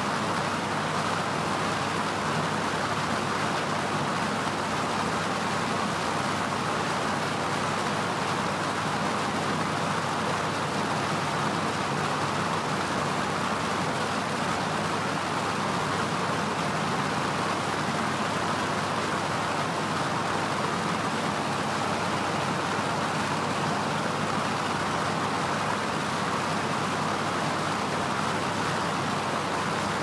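Electric fan running steadily: an even, unchanging whoosh of moving air with a faint low hum underneath.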